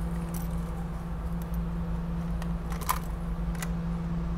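SEPTA regional rail car standing at a platform, its onboard equipment humming steadily with an even low tone over a rumble. A few light clicks come through, the loudest about three seconds in.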